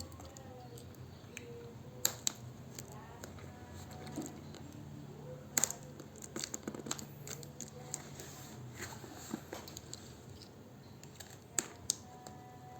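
Phone box and packaging being handled: scattered sharp clicks and light crinkling, over a steady low hum.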